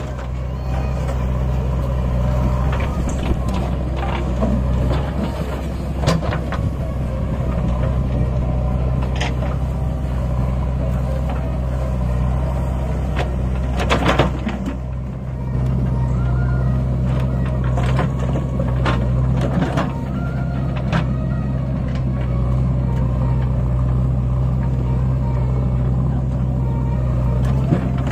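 Diesel engines of a John Deere tractor and a JCB backhoe loader running steadily. Scattered knocks and clanks from the work are heard over them, a cluster of them about halfway through.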